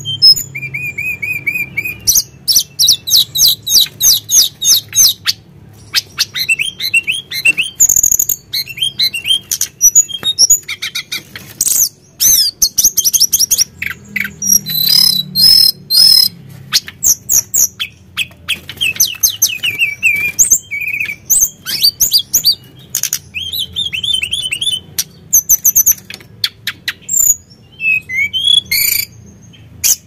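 Caged tledekan gunung, a blue flycatcher, singing: a fast, varied run of high whistles, trills and chattering phrases broken by short pauses.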